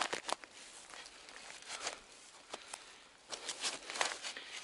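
Scattered scrapes and crackles of a hand spade working in soil and dry leaf litter, sparse at first and busier from about three seconds in.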